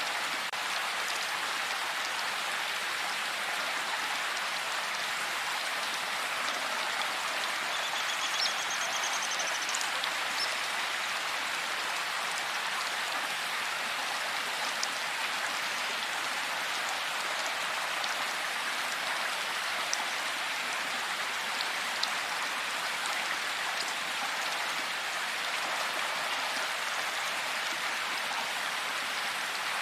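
Steady heavy rain falling in a forest, an even hiss of drops with an occasional single drip ticking nearby.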